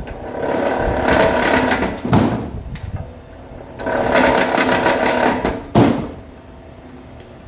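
Vevor electric wire stripping machine running as wire is fed through its rollers and blade twice, each pass lasting about two seconds and ending in a sharp knock as the wire end comes free, with the motor humming steadily between passes.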